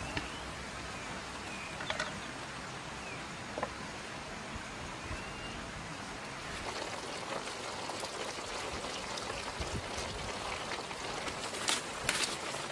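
Vegetables sizzling in a wok over a wood fire: a steady frying hiss, with a few sharp clicks near the end. Now and then a bird chirps.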